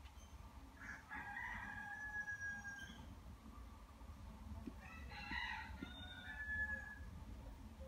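A rooster crowing twice, each call about two seconds long and ending on a long held note, over a low steady hum.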